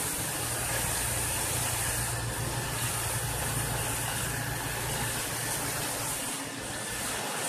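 Asphalt paver's diesel engine running steadily with a low hum, over a steady hiss.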